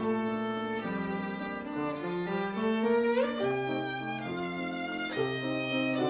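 Violin playing a melody over held lower notes, with a quick upward slide about three seconds in.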